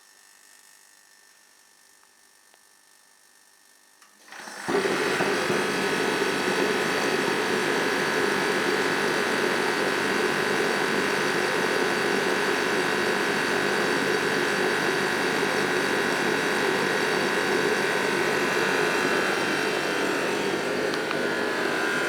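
Sealey AB458 kerosene forced-air space heater starting up: after a click and a faint hum, it catches about four and a half seconds in and runs with a loud, steady noise of fan and burner.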